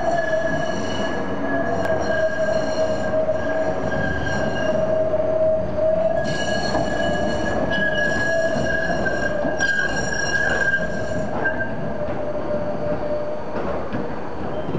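GT6N tram's wheels squealing on the rails: a steady high squeal with higher, shriller tones cutting in and out, strongest in the middle.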